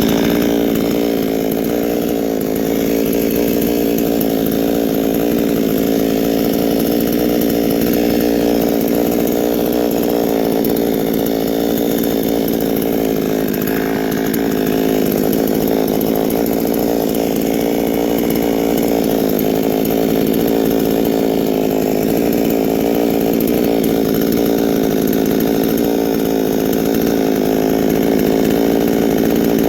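Gasoline chainsaw running steadily throughout, trimming protruding knots flush off the log cabin's sill logs.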